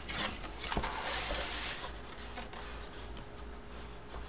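Cardboard rubbing and scraping as hands slide open a large flat cardboard box, loudest in the first two seconds, with a small knock just before one second in.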